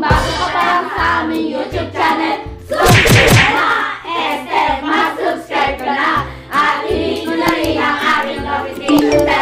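Young voices singing together as a group over backing music with a repeating bass beat.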